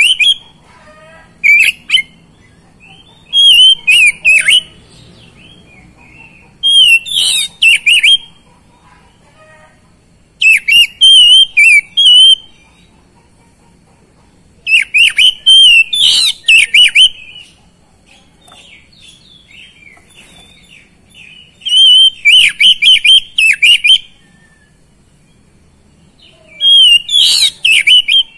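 Oriental magpie-robin (kacer) in full, vigorous song. It sings loud whistled phrases of one to two seconds, with quick pitch turns, and pauses of a few seconds between them.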